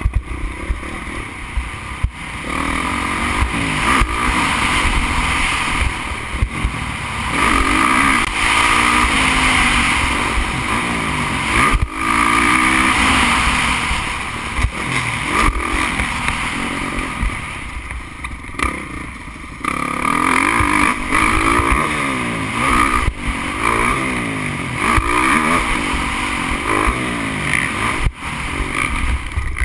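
Motocross bike engine heard onboard at racing speed, its pitch rising and falling again and again as the throttle is opened and closed through corners and gear changes, with wind rumbling on the microphone.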